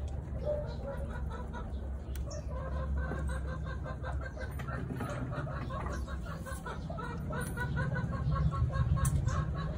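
Chickens clucking, many short calls repeated in quick succession, over a low steady rumble.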